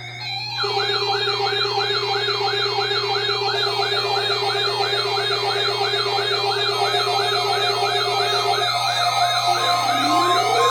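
Weather radio test warning alarm made of electronic siren sounds: a fast yelp sweeping up and down about three times a second over a steady lower tone. Near the end the lower tone stops and a slower rising wail and a pulsing beep join in.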